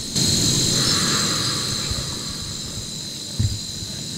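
Night insects chirring steadily at a high pitch over a low rumbling noise, with a soft knock near the end.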